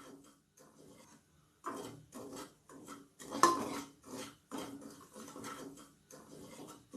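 A spoon stirring and scraping wheat rava as it roasts in ghee in the bottom of a pressure cooker: repeated short scraping strokes, about one or two a second, one louder scrape about halfway through.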